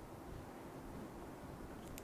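Scissors cutting card, with one short snip near the end over steady faint room noise.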